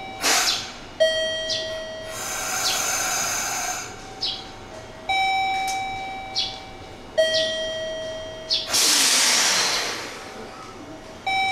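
A two-note electronic chime, higher then lower, repeating about every six seconds, with short falling chirps in between. Two long bursts of compressed-air hiss come from the standing 103 series electric train, the second, near the end, being the loudest.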